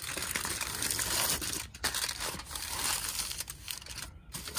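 Aluminium foil crinkling as hands press and fold it down over a plastic ice cube tray, with a couple of short lulls.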